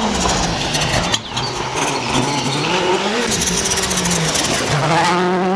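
Citroën C3 WRC rally car engine running hard on a gravel stage, its pitch rising and falling as the driver works the throttle and gears.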